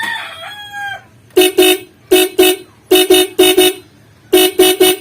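A rooster crows near the start. Then the motorcycle's aftermarket dual horn, high and low horns sounding together, gives about eleven short toots in quick groups of two, two, four and three. It is being switched through a newly fitted mini relay, and the toots show the relay is working.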